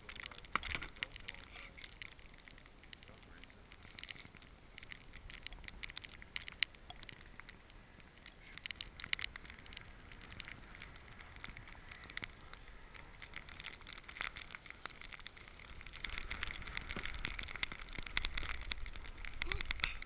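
Irregular crackling and rustling right at the microphone of a helmet-mounted camera in its housing as the wearer moves about, with a low wind rumble that grows louder in the last few seconds.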